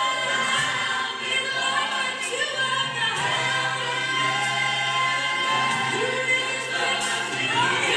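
Gospel worship song playing: a choir singing over steady sustained instrumental backing.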